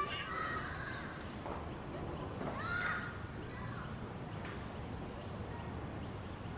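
Small-town outdoor ambience: distant children's shouts and calls, clearest near the start and about three seconds in, over a low steady background rumble. Faint short high chirps repeat a few times a second throughout.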